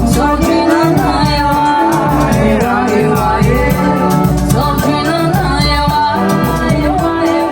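A Brazilian philharmonic wind band playing a song's instrumental passage: melody lines over a bass, with percussion keeping a steady beat.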